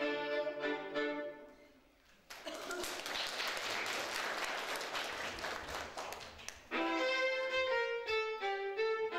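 Violin and accordion playing a folk tune that fades out about a second and a half in. A stretch of even, crackling noise with no tune follows for about four seconds, then the violin and accordion start up again near the end.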